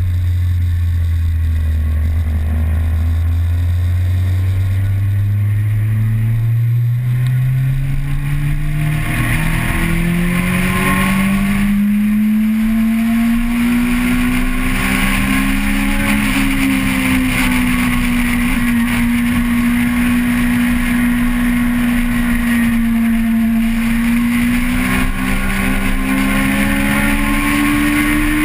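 Vehicle engine heard onboard, its pitch climbing smoothly for about the first ten seconds as it accelerates, then holding at high revs with small rises and dips, over steady rushing noise.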